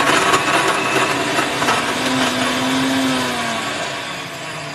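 Countertop blender running at speed, on the first blend of a chunky soaked-bread mixture for a bread cream. It gets somewhat quieter over the last second or so.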